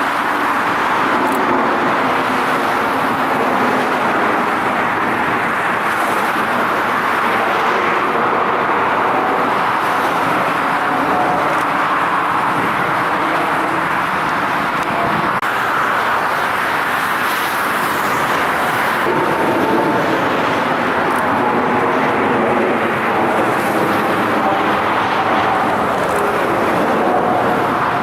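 Jet aircraft engines running, a steady roar with faint whining tones that shift in pitch about midway.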